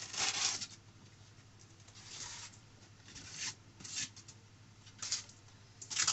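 Polystyrene foam packing sheets rubbing and scraping against the inside of a cardboard box as they are pulled out, in a series of short scrapes.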